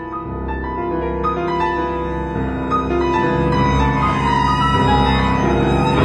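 Chamber ensemble of flute, clarinet, violin, cello and piano playing a contemporary piece. Long held notes sound over a steady low drone and grow gradually louder.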